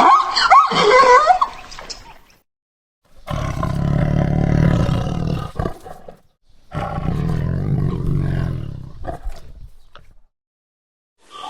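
A big cat roaring twice: two long, deep roars of about three seconds each, separated by a short pause. Before them, high, squealing animal calls fade out.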